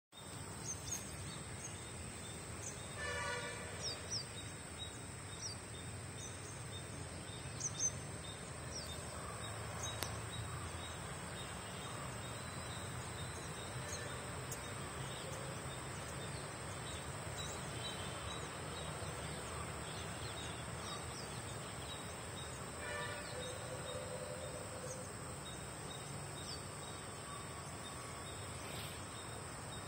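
Outdoor ambience: a steady high-pitched insect drone with many short bird chirps over a low background rumble, and twice a louder short call.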